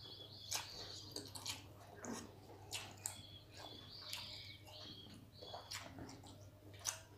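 Faint eating sounds of rice and fish curry eaten by hand from a steel plate: soft, scattered clicks and smacks as fingers mix the rice against the plate, with chewing. Birds chirp faintly in the background, and a low hum runs steadily underneath.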